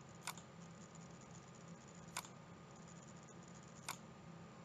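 Three single computer mouse clicks, about two seconds apart, over near-silent room tone.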